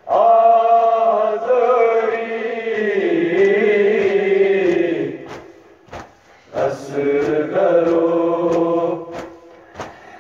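Unaccompanied voices chanting a Kashmiri noha lament in long, drawn-out phrases, two of them with a short break in the middle.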